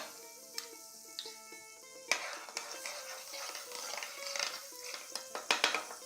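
Utensil scraping and light clinks of kitchen handling at a sandwich griller, starting about two seconds in, over quiet background music.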